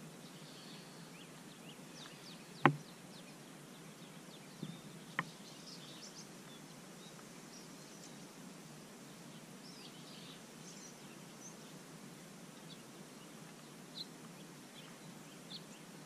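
Open-air ambience: a steady faint hiss with scattered faint high bird chirps. A sharp click about two and a half seconds in is the loudest sound, with a few smaller clicks later.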